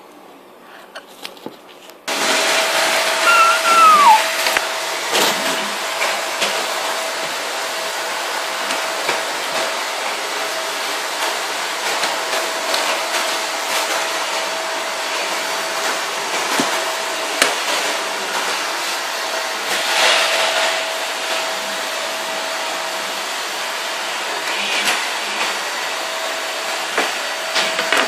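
Steady whooshing appliance or fan noise with a constant mid-pitched whine, starting suddenly about two seconds in. Light crinkles and clicks from a plastic zip bag of raw bacon being opened and the strips laid on a cutting board sit over it.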